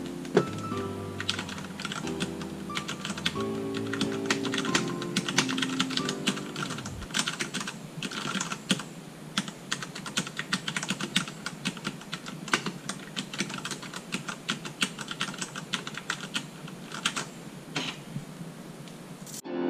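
Rapid, continuous typing on a Ducky One 2 SF mechanical keyboard, a dense run of key clicks and clacks. Soft background music plays under the typing for roughly the first third, then stops.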